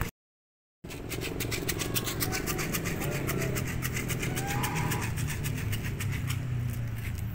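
Steady low hum of a running engine with a fast, even ticking over it, and a faint short call about five seconds in; the sound drops out briefly at the very start.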